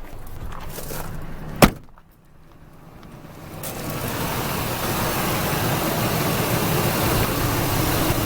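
A single sharp knock about a second and a half in, then the 2000 Ford F-150's 5.4-litre V8 idling, its steady running coming up about three and a half seconds in and holding.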